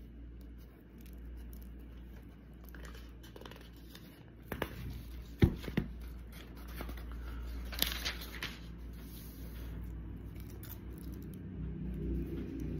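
Handling noise close to the microphone: scattered rustles, scrapes and a few sharp clicks, the sharpest about five seconds in, over a steady low hum.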